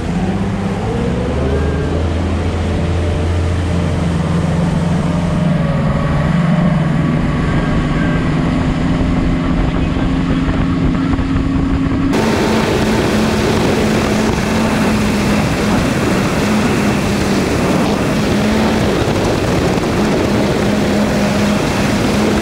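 Bass boat's outboard motor running at speed, its pitch climbing in the first few seconds, with a rush of wind and water. About halfway through, the sound changes suddenly to a louder, hissier rush of wind and spray over a steady engine tone.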